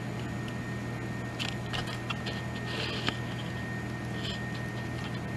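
Steady low background hum with a thin, steady high whine, and a few faint clicks and soft hisses.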